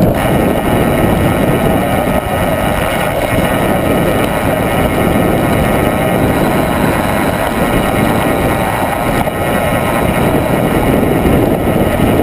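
Mountain bike descending a dirt track at speed: a steady rush of wind buffeting the camera microphone over the rumble of the tyres on the dirt.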